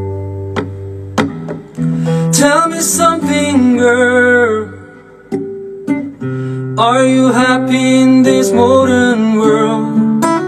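A man singing to his own classical guitar: plucked notes and chords throughout, with two sung phrases, one about two seconds in and another from about seven seconds in.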